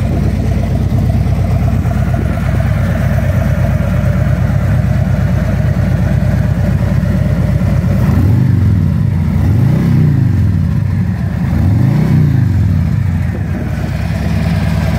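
Harley-Davidson Street Glide's V-twin engine idling steadily, then revved three times in quick succession about eight seconds in, the pitch rising and falling with each blip before it settles back to idle.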